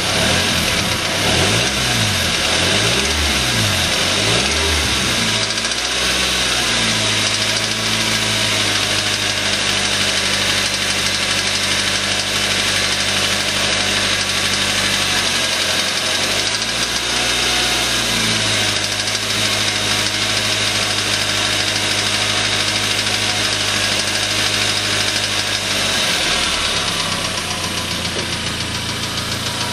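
Suzuki Aerio's four-cylinder engine running with a rod knock from a spun connecting-rod bearing. The revs rise and fall several times in the first few seconds and once more about halfway through, and the engine otherwise runs steadily.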